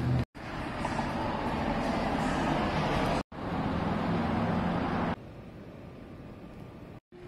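Street ambience of city traffic, a steady wash of road noise from passing vehicles, broken by two short drops to silence where clips are cut together. A steady low hum runs through the middle stretch, and the sound falls quieter about five seconds in.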